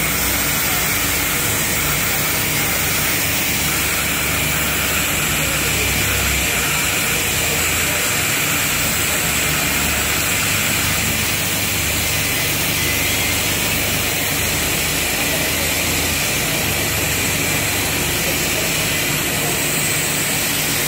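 TIG welding arc burning unbroken on a pipe-to-slip-on-flange joint: a steady hiss with a low, even hum beneath it.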